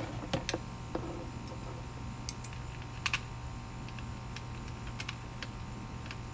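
Scattered light clicks and taps of a solar panel's screws and mounting bracket being handled and fitted, over a low steady hum.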